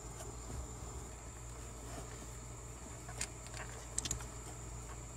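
Insects trill steadily at a high pitch over a low hum. A socket wrench on the shifter linkage nut gives a few faint metallic clicks around three and four seconds in.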